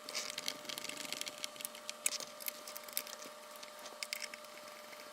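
Light, irregular clicks and scraping of hands and small tools working on a plastic radio-transmitter case as its two halves are fitted and screwed back together.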